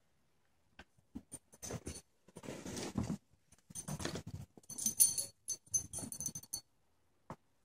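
A small dog and a grey squirrel scrambling and scuffling around a rug under a table, in irregular bursts of patter and scrabbling, with a high jingling in the middle of it, about five seconds in.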